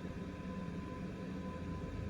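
Steady fan hum and hiss with a few fixed tones from electronics repair bench equipment, with a low rumble joining about a second and a half in.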